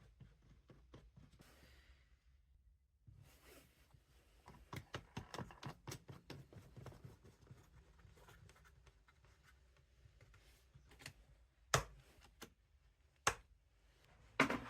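Quiet handling sounds: a run of quick scratchy clicks about four seconds in, then three sharp single knocks near the end.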